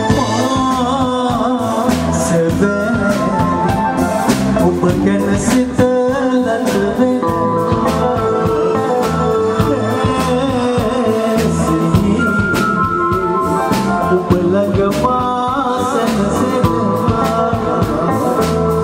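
Music: a song with a singing voice over a band with a steady beat.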